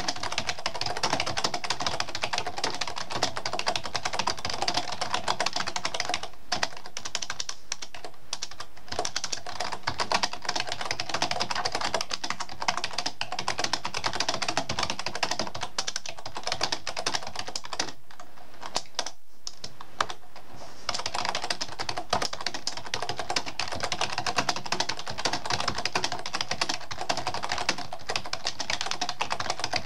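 Fast typing on a computer keyboard: a dense, continuous run of key clicks, with a brief pause about six seconds in and a longer pause of a second or two around nineteen seconds in.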